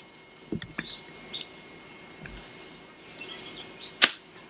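Small birds chirping now and then, with a few soft knocks early on and one sharp click about four seconds in.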